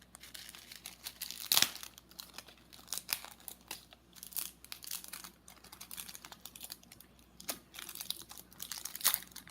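Plastic packaging crinkling and rustling in irregular crackles as a small packet of sequins is handled and opened, with sharper snaps about a second and a half in and again near the end.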